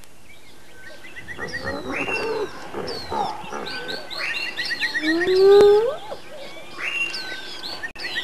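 African bush evening chorus: many birds chirping and whistling, a fast repeating trill, and short buzzy calls that come back every two or three seconds. About five seconds in, one louder rising call from a wild animal stands out.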